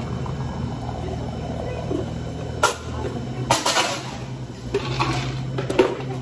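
Steady low machine hum with a sharp knock partway through and several short bursts of hissing noise.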